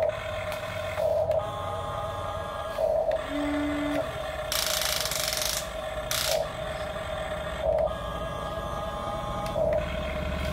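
Huina radio-controlled toy excavator's electric gear motors whining as the boom and bucket move, steady in pitch with louder surges every second or two. A short burst of hiss comes about halfway through.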